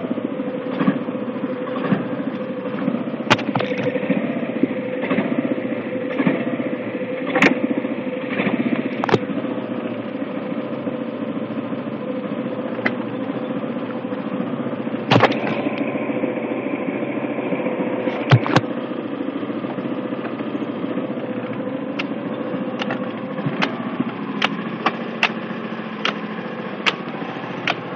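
Iseki rice transplanter's four-stroke three-cylinder engine running steadily at low speed, with sharp clicks and knocks as the planting mechanism is set working; the clicks come more regularly near the end.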